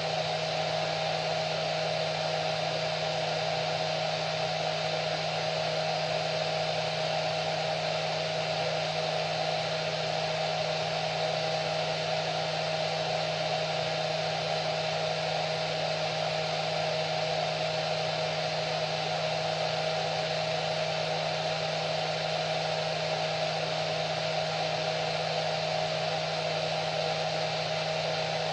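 Hair dryer running continuously: a steady airflow hiss with an even motor hum and a constant whine.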